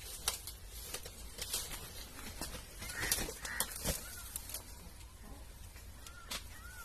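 Faint short bird calls, a pair about three seconds in and another near the end, each a brief rising-and-falling note, among scattered light clicks and taps.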